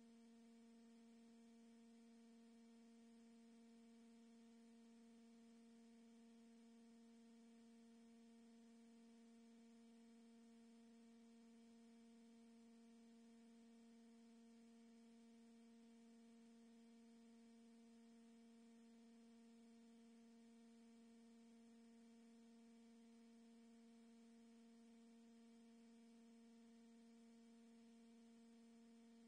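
Near silence: a faint, steady electrical hum at one constant pitch, with a few higher overtones, over low hiss.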